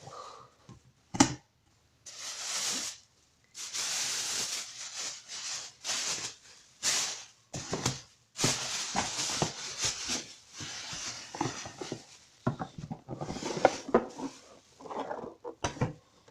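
Packaging being handled and unwrapped: repeated crinkling, rustling bursts of about a second each, with a sharp knock about a second in and a few lighter knocks later.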